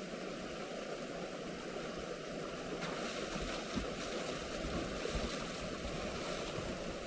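Fast-flowing river water rushing over the rocks below a waterfall, a steady even rush.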